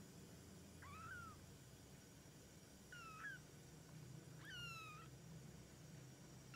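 Two-week-old kittens mewing faintly: three short, thin, high-pitched mews a second or two apart, most of them sliding down in pitch.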